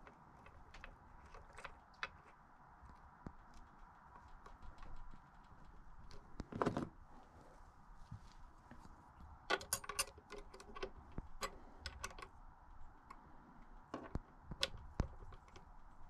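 Tools and small metal bike parts being handled on a work surface: scattered clicks and light metallic clinks, a brief scrape about six and a half seconds in, and a quick run of ringing clinks around ten seconds in.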